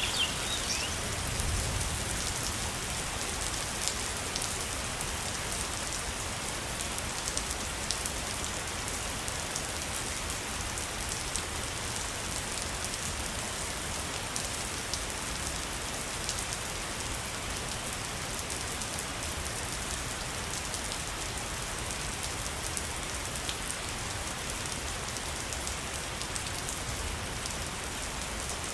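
Waterfall: a steady, even rush of falling water with fine splashing ticks.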